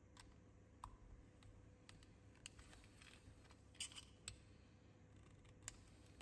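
Faint, scattered small clicks and taps of a plastic RC-car gearbox and its brass universal joint being handled and turned over, with a few clicks close together about four seconds in.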